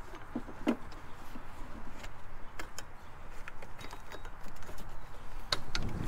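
Scattered light clicks, knocks and rubbing as a gloved hand works a new serpentine drive belt onto the engine's accessory pulleys.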